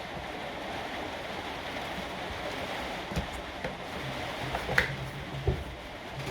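Light clicks and knocks from hand-reassembling an angle grinder's parts, over a steady hiss; the sharpest click comes just under five seconds in.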